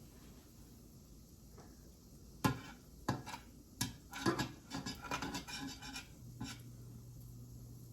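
Kitchen dishes and utensils clinking and knocking together in a quick run of clatters lasting a few seconds. A low steady hum starts near the end.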